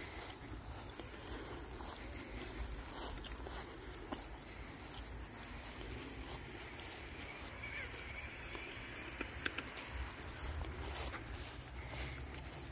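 Late-summer meadow insects making a steady, very high-pitched hiss that grows louder and then cuts off suddenly near the end.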